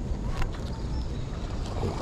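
Wind rumbling on the microphone outdoors, with a single sharp click under half a second in.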